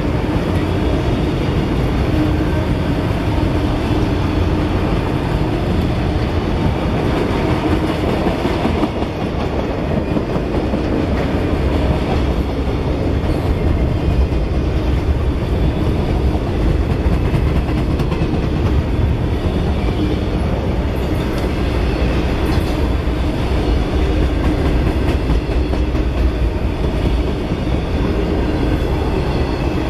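A freight train of autorack cars rolling past: steady, loud rolling noise of steel wheels on rail.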